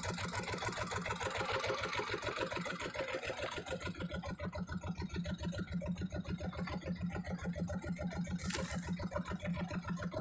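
A small fishing boat's engine idling with a quick, even pulse.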